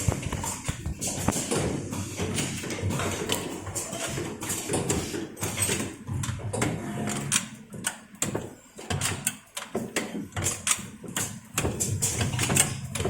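Six-station automatic soldering machine running, with frequent irregular clicks and knocks from its mechanism over a steady low hum.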